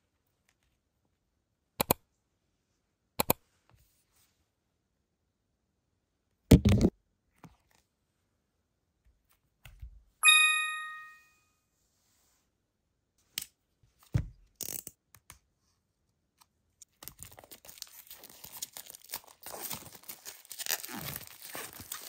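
A few sharp taps and a loud thump as an album is handled, a single chime-like ding near the middle, then in the last few seconds a continuous crackle of plastic shrink wrap crinkling and tearing as it is peeled off the album.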